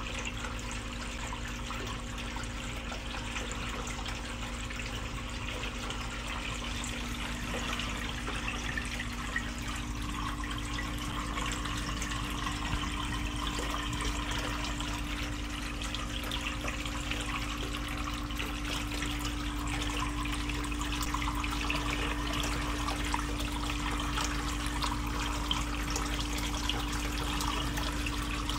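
Water trickling steadily in a soft-shell crab holding tray, over a steady low hum.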